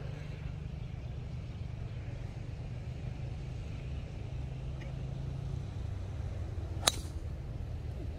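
A golf club strikes the ball off the tee once, about seven seconds in: a single sharp crack with a brief ring. A steady low rumble lies underneath.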